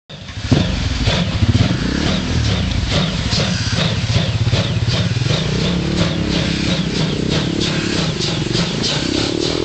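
Ty2 steam locomotive, a wartime 2-10-0 freight engine, pulling away under steam. Its exhaust chuffs in a quick, even beat over a heavy rumble, with steam hissing from the open cylinder drain cocks.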